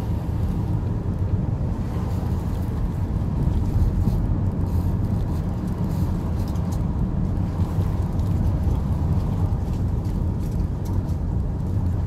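Car driving at low speed on a paved road, heard from inside the cabin: a steady low rumble of engine and tyre noise.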